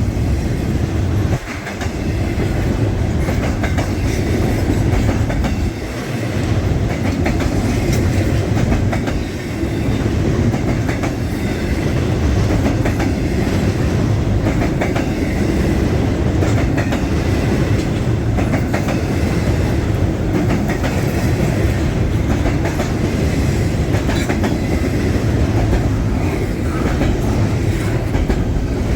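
Canadian National freight train rolling past, its cars' wheels clacking steadily over the rail joints.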